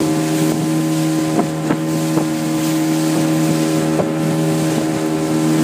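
Small open boat's motor running steadily at cruising speed, with wind on the microphone and the hull knocking against the waves a few times.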